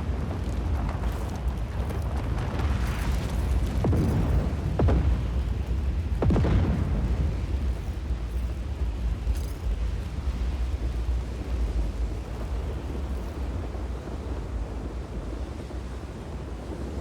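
Strong wind rumbling on the microphone, in gusts that peak about four to seven seconds in.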